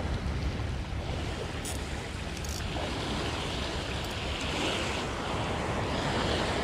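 Small waves washing and lapping onto a sandy shore, with wind buffeting the microphone in a steady low rumble. A couple of faint ticks come about two seconds in.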